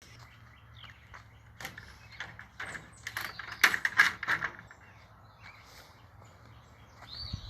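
Birds chirping, with a cluster of sharp clicks and knocks about two to four and a half seconds in.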